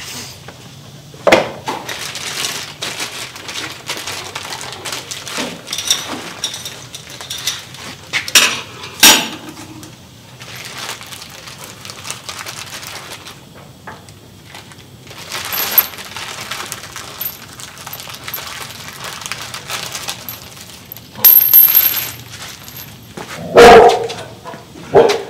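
Small metal parts of a new sway bar end link kit, its washers, bolt and sleeve, clinking and rattling as they are handled and unpacked, with rustling packaging and a few sharp clicks. A short loud sound comes near the end.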